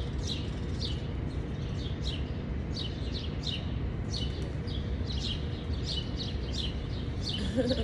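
Small birds chirping over and over, short falling chirps about three a second, over a steady low background rumble.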